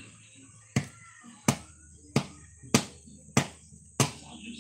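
Six sharp knocks at an even pace, about one every two-thirds of a second, over a faint steady background.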